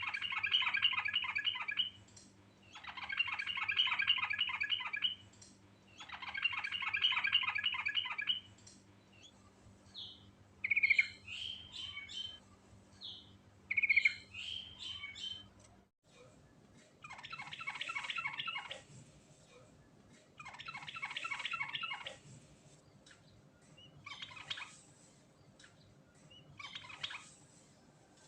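Trucuk (yellow-vented bulbul) singing in long, lively phrases. Each phrase is a rapid run of bubbling notes lasting about two seconds, and the phrases repeat every few seconds, with short single calls scattered between them about halfway through.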